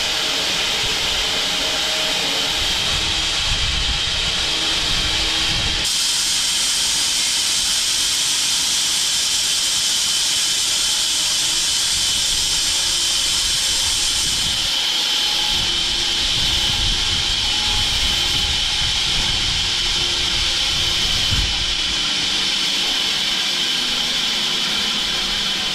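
Home-built bandsaw mill running and cutting through an acacia log: a steady, loud hiss with a high whine over it. It turns brighter about six seconds in and eases back a little after about fourteen seconds.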